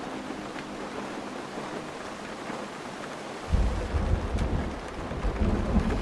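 Steady rain falling, with a low rumble of thunder breaking in suddenly about halfway through and rolling on.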